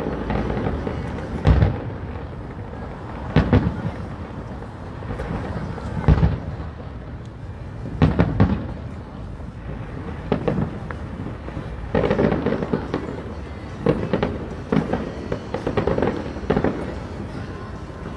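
Aerial fireworks shells bursting, one booming bang every two seconds or so with a rumble after each, the bursts coming faster near the end.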